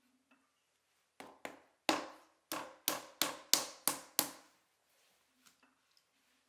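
A hand slapping a ball of wet clay down onto a wooden wheel bat, about nine sharp pats in quick succession over three seconds.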